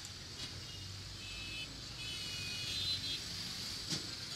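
Street traffic: vehicles passing at low speed over a steady low hum, with a couple of faint clicks.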